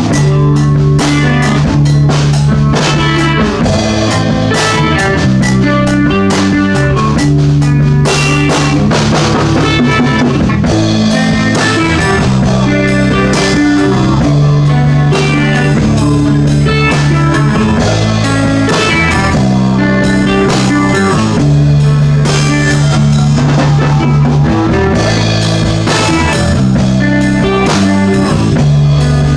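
A band jamming on guitar and drum kit, playing a loud, steady rock groove. Long held low notes run under regular drum hits.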